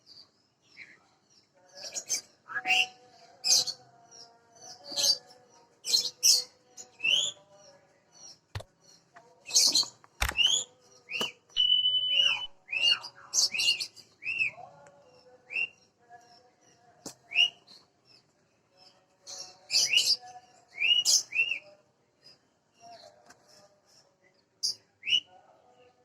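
Small birds chirping in many short, high calls, with one briefly held whistle note near the middle. Two sharp knocks come about a third of the way in.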